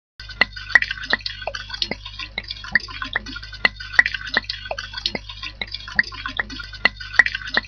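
Liquid pouring from a Japanese sake bottle (tokkuri), glugging as air is drawn back through the narrow neck: a quick, slightly irregular run of sharp pops, about three or four a second, over the hiss of the pour. It starts abruptly about a fifth of a second in.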